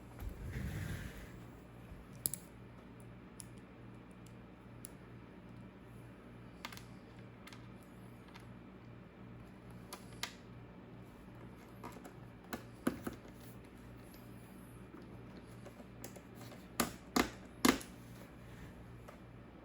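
Scattered key presses and clicks on a laptop keyboard, a few at a time, with the loudest cluster of clicks near the end, over a steady low hum. A brief low rumble sounds right at the start.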